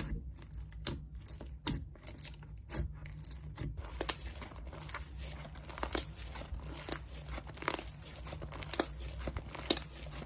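Slime being squished and pressed by hand, giving irregular crinkly clicks and small pops, a few a second.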